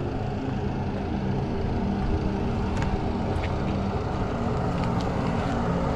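Diesel engine of heavy earthmoving equipment running steadily, a steady hum with no change in pace.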